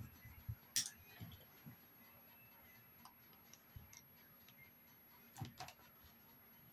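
Scattered small clicks and light knocks of makeup tools and products being picked up and set down, the sharpest about a second in and two more close together about five and a half seconds in.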